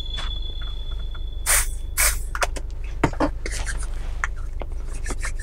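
Aerosol spray can sprayed in two short hisses, followed by a few light clicks and rustles, over the low steady drone of a car running, heard inside its cabin.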